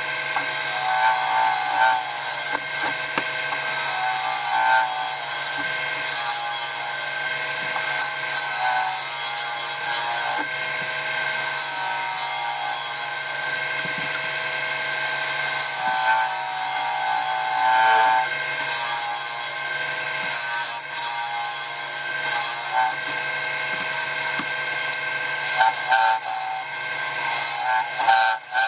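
Wood lathe running with a hand-held turning tool cutting into spalted beech, a continuous scraping cut over the steady hum of the lathe motor, as the inside of the box lid is hollowed out.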